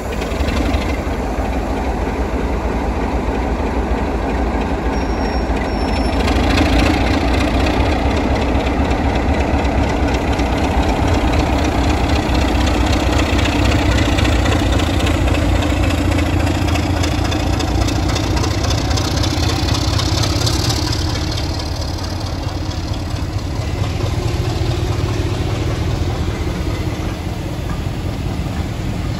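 Class 33 diesel locomotive's Sulzer eight-cylinder engine working hard as it pulls away with a passenger train and passes close by, getting louder about a fifth of the way in. Near the end the engine eases off as the coaches roll past.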